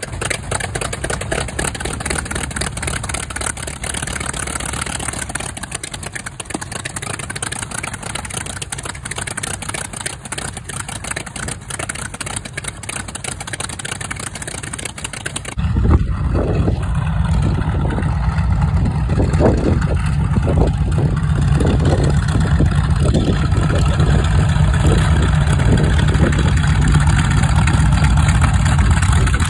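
Focke-Wulf Fw 190's radial engine idling steadily just after a smoky start-up. About halfway through, the sound jumps to a louder, deeper engine running as the fighter taxis.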